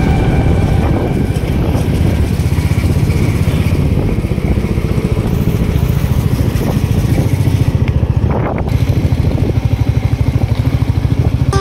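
Motorcycle engine running steadily under way, heard from on the bike as a fast, even throb.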